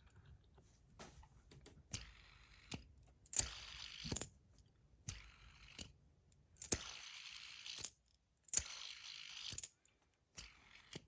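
Bar fidget spinners spun by hand over and over: each spin starts with a sharp click, whirs on its bearing for about a second, and stops with another click as it is caught.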